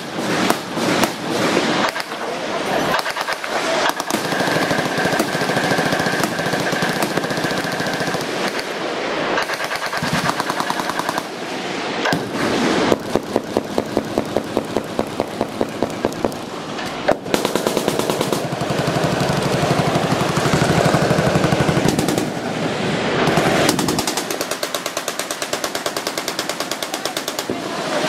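Machine-gun fire: long automatic bursts almost without pause, dropping off briefly a few times.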